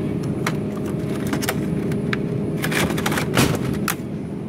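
Plastic cheese packets crinkling and clacking as they are handled, several short cracks, the sharpest about three and a half seconds in, over a steady hum.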